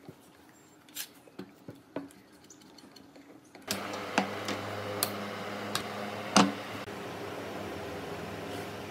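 Sharp clicks and knocks of quick-release bar clamps and pine workpieces being handled on a wooden table, a few at first, then more, with one louder knock about six seconds in. From about a third of the way in a steady low hum runs under them.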